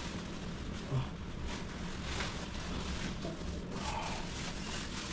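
Rustling and scraping of a TV's plastic wrapping against its cardboard box as the set is lifted out, with one dull knock about a second in.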